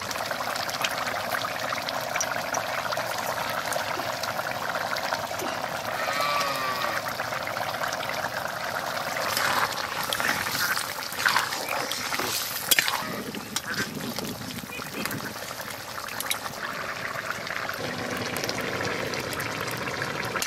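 Taro-stem and fish-head curry bubbling steadily in a metal pan on a wood-fired clay stove. About halfway through, a spatula stirring the pan adds scrapes and clicks.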